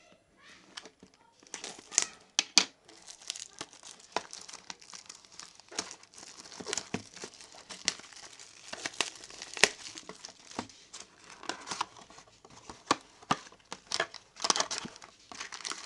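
Plastic shrink-wrap crinkling and tearing as it is pulled off a cardboard box of trading cards, a dense run of sharp crackles.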